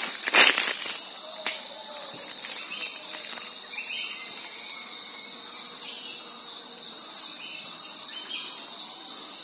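Insects droning in the forest in one steady, high-pitched note that never lets up, with a brief knock just after the start and a few faint bird chirps around the middle.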